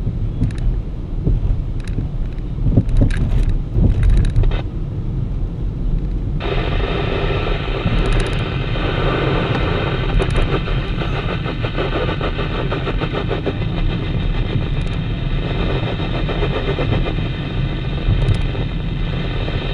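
Mitsubishi car's engine and road noise heard inside the cabin, with a few light clicks early on. About six seconds in, the dashboard CB radio on channel 19 opens up with a steady hiss of static that cuts off sharply at the end.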